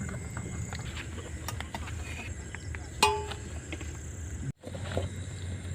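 Steady night-time insect drone over a low hum, with scattered small clicks and one sharp, briefly ringing metallic clink about three seconds in; the sound cuts out for an instant near the end.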